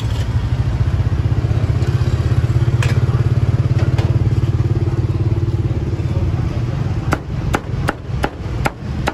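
Cleaver chopping roasted pork on a round wooden chopping block: a quick run of sharp chops, about three a second, starting near the end. Under it runs a steady low drone of an idling engine.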